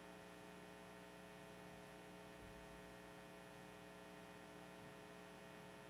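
Near silence with a steady electrical mains hum, a set of unchanging tones.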